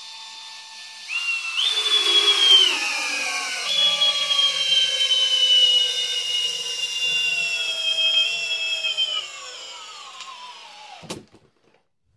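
A Flex 24V cordless drill in first gear, drill mode, drives a large lag screw into timber without a pilot hole. Its motor whine steps up about a second in, then slowly sinks in pitch as the screw bites deeper and the torque builds. The drill bogs down and stops abruptly near the end.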